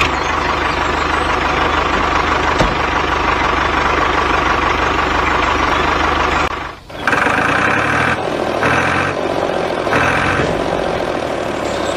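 Tractor engine running steadily as the tractor drives off. The sound dips briefly about seven seconds in, then carries on with three short higher-pitched stretches over it.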